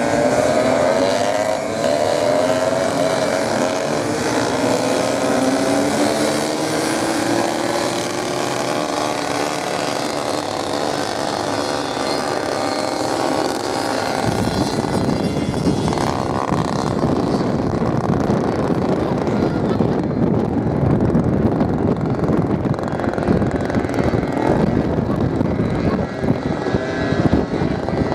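Several off-road motorcycle engines revving and running, their pitches rising and falling over one another. From about halfway a rough rushing noise with a heavy low rumble, typical of wind buffeting the microphone, largely covers the engines.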